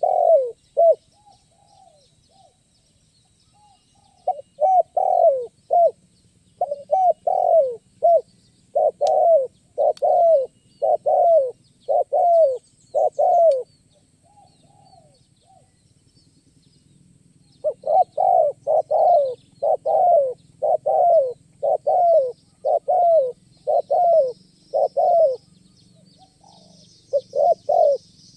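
Spotted dove (tekukur) cooing: short repeated coos, several to a run, with pauses of a few seconds between runs. Faint high chirps of small birds come in near the end.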